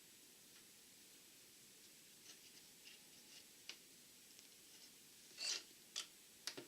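Faint room tone, then from about two seconds in a scatter of light plastic clicks and rattles as Lego bricks are picked through and handled, with a few sharper clicks near the end.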